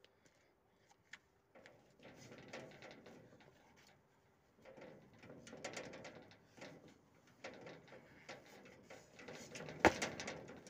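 Faint scuffing, rustling and small knocks of a person climbing over a fence, with one sharp knock near the end, the loudest sound.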